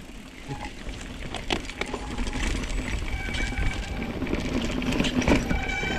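Mountain bike rolling over a rough dirt forest track, heard from the handlebars: tyre and frame noise with a low rumble, and many sharp clicks and rattling knocks from the bike. About halfway in, a steady high squeal joins in and grows louder near the end.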